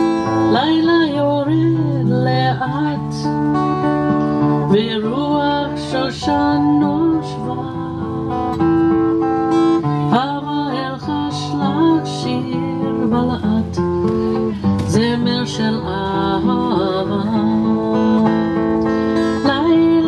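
Background music: an acoustic guitar played steadily with plucked and strummed chords, and a melody line that bends and wavers in pitch.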